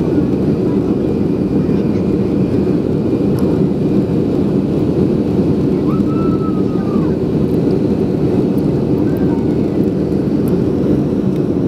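Steady cabin noise inside a Boeing 737-400 climbing out after takeoff: the low, even rumble of its CFM56 engines and airflow, heard at a window seat beside the wing.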